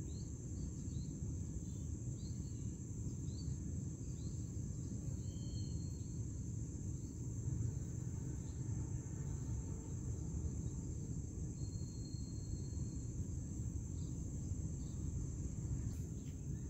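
Insects droning steadily at a high, even pitch over a low background rumble, with faint short chirps repeating in the first few seconds.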